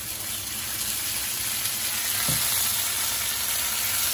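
A consommé-dipped corn tortilla taco sizzling in hot oil in a nonstick frying pan: a steady frying hiss that grows a little louder. A brief low knock sounds about two seconds in.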